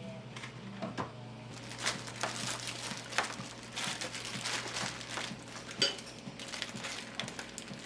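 Light clinks and knocks of household items being handled, scattered irregularly, over a steady low hum.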